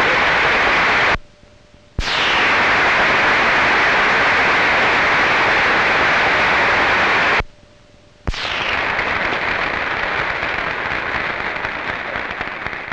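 Audience applauding steadily. The sound cuts out abruptly twice for about a second, then dies away near the end.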